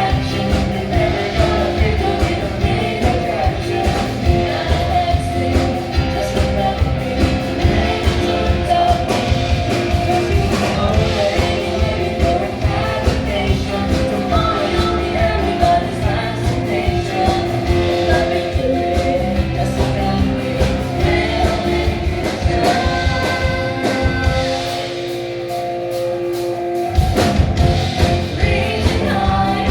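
Upbeat rock-style song with singing over a steady drum beat. Near the end the drums and bass drop out for about two seconds, then come back in.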